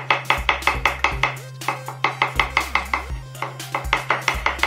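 Kitchen knife rapidly slicing raw button mushrooms on a wooden cutting board: quick knocks of the blade on the board about six times a second, with a couple of brief pauses. Background music plays underneath.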